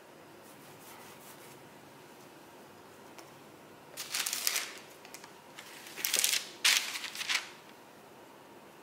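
Baking paper rustling and crinkling as a paper-lined baguette tray is handled, in three short bursts: one about four seconds in and two close together around six to seven seconds.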